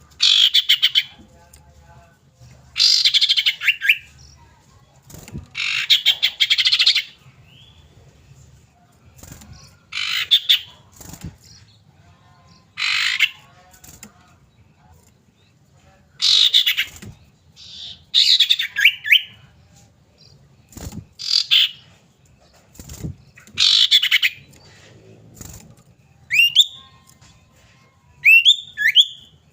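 Common iora calling: short buzzy chattering bursts repeated every two to three seconds, with two rising whistled notes near the end.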